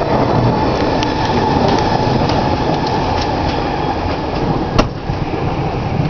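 Thunder rolling in a long, steady rumble, with scattered light ticks and one sharp click about five seconds in.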